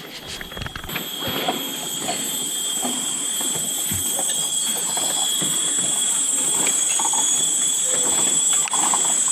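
Rainforest cicadas droning: a steady, high-pitched shrill with two pitches that swells in about a second in and holds, growing slowly louder. Scattered soft knocks and rustles sound underneath.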